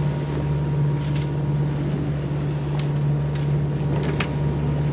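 Diesel engine of a Leopard 45 sailing catamaran running steadily under way, a constant low drone while the boat motor sails in light air. A few faint ticks sound over it.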